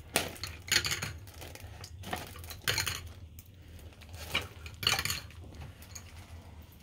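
Wooden coloured pencils clinking and knocking against each other and the porcelain sink, in several short clusters of clicks about a second apart.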